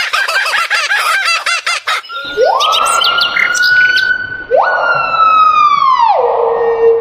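Bird calls: a quick run of short repeated calls, then, after an abrupt change, two long drawn-out calls that each rise and hold, the second falling away at the end.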